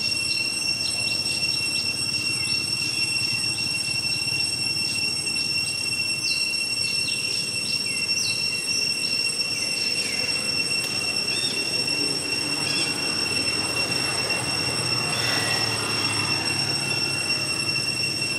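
A steady, high-pitched drone of cicadas, with short falling bird chirps over it, most of them in the first half.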